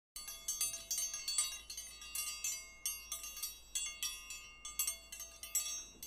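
Wind chimes ringing: many irregular, high-pitched strikes, each ringing briefly before the next.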